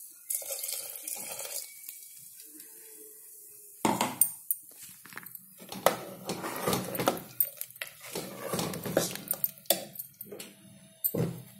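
Steel ladle stirring thick curry in a pressure cooker pot, clinking and scraping against its metal sides, with many sharp knocks from about four seconds in.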